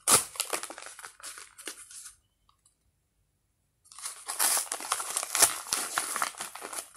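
A packet crinkling and rustling as it is handled by hand close to the microphone. It stops dead for nearly two seconds in the middle, then starts again.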